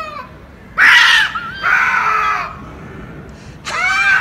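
Two cats yowling at each other in a standoff, the aggressive caterwauling that comes before a fight. A long wavering howl tails off just after the start, and loud screeching yowls follow about a second in, again near two seconds, and once more near the end.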